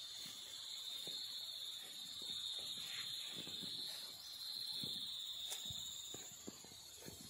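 Insects buzzing in a steady high-pitched drone that swells a little twice, with faint footsteps on grass underneath.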